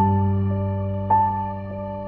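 Background music: keyboard notes struck about twice a second over a held low bass note.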